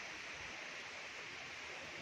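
Steady rushing of flowing water from a stream, an even hiss with no breaks or strokes.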